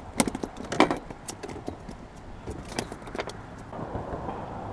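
Sharp clicks and rattling knocks of fishing gear being handled in a small boat, the loudest about a second in and a few more near the three-second mark. A steady rushing noise grows near the end.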